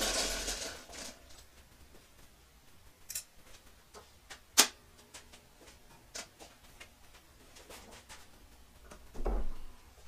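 Workshop handling noises while a welder's ground clamp and leads are set up on a bench vise: a rustle at first, then scattered light clicks and knocks. The loudest is a single sharp click about halfway through, and a duller thump comes near the end.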